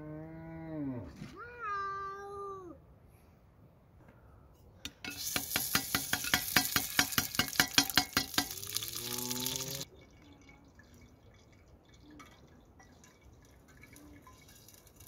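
A ladle of solid white fat sizzling and crackling loudly in a hot pot over a wood fire, from about five seconds in until it cuts off sharply near ten seconds. Before it an animal gives two drawn-out calls, and another call sounds under the end of the sizzling.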